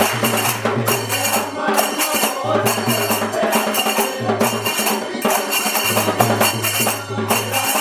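Large brass hand cymbals clashed together in a steady beat, about two strikes a second, in devotional bhajan music with a low bass note that comes and goes underneath.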